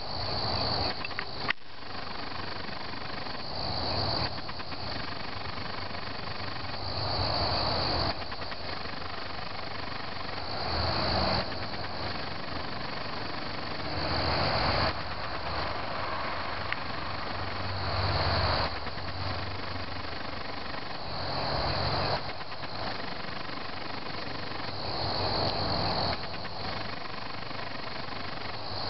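Crickets chirping steadily, with a louder swell of sound about every three and a half seconds and a low hum underneath.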